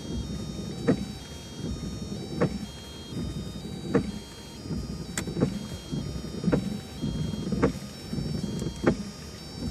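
Windshield wipers of a 1998 Volkswagen Jetta TDI running under test of a replacement wiper switch. The wiper motor drones steadily, with a knock at each stroke about every second and a half.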